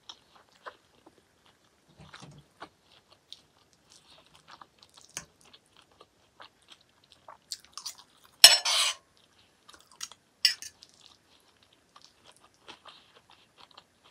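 A person chewing a mouthful of peas, greens and chicken: soft, scattered smacks and crunches, with a short louder scraping noise about eight and a half seconds in and a smaller one about two seconds later.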